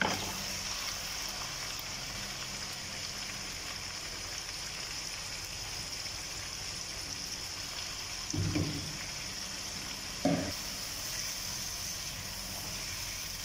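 Marinated mutton frying in hot ghee in a wok: a steady sizzle as the meat is scraped in from a bowl and stirred. Two short knocks sound about eight and a half and ten seconds in.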